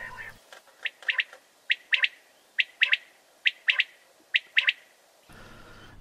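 Common quail calling its three-note 'wet-my-lips' phrase, heard in Polish as 'pójdźcie żąć', five times in a row, about one phrase a second. Each phrase is one short note followed by a quick pair.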